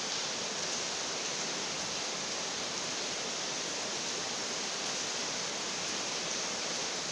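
A steady, even hiss like rushing air, unchanging throughout.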